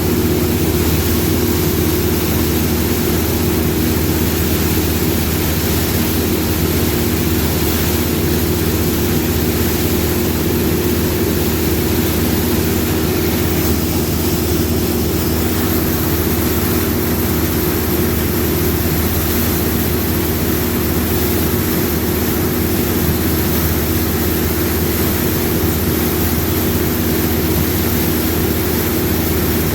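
Combine harvester running steadily, a constant engine drone with a steady hum under it.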